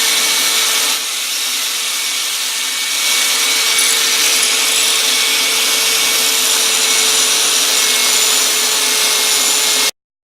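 Bench grinder running with the forged steel cleaver blank held against it, a steady harsh grinding noise that gets louder about three seconds in and cuts off abruptly near the end.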